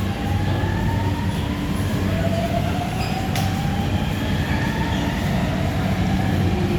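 Shanghai Metro Line 2 electric train running at the platform: a steady heavy rumble with several thin whines slowly rising in pitch. A single sharp click comes about three seconds in.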